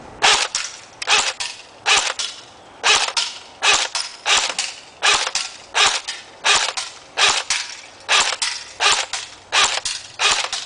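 CYMA AK-47 electric airsoft gun (full metal, metal gearbox) firing over and over at a can: sharp snapping shots in quick clusters of two or three, about one cluster every three-quarters of a second.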